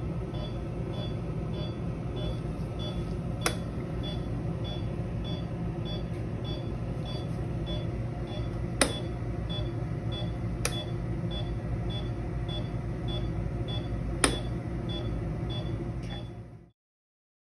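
Anaesthesia patient monitor beeping steadily about twice a second with the pulse, over the constant hum of clinic equipment. Four sharp clicks are scattered through, and the sound cuts off abruptly near the end.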